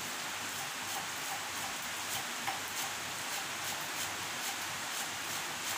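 Steady rain, an even hiss, with faint scattered light ticks over it.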